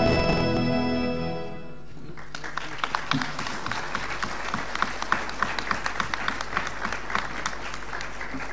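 A held chord of music from a played video fades out over the first two seconds, then an audience applauds.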